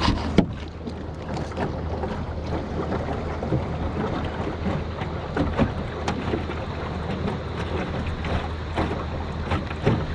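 Steady rush of wind and moving water on a small open boat, with a low steady hum underneath and a sharp click just after the start.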